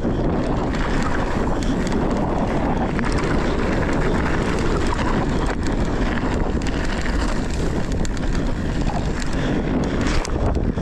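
Wind buffeting the microphone of a mountain bike's on-board camera, over the steady rolling noise of the tyres on a dirt trail and then gravel, with scattered clicks and rattles from the bike.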